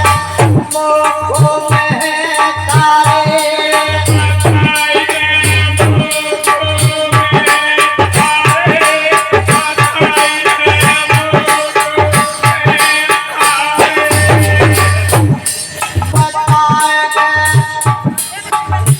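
Indian folk devotional music in the thali ki Ramayan style: fast rattling metal-plate (thali) percussion over a recurring low drum beat and sustained melodic tones.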